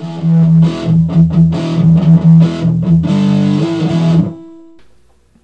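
Short intro music with a steady run of notes, cutting off about four seconds in and dying away to near silence.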